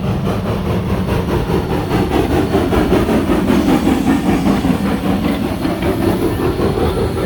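A long train rolling past close by: a steady loud rumble and clatter of its cars' wheels on the rails.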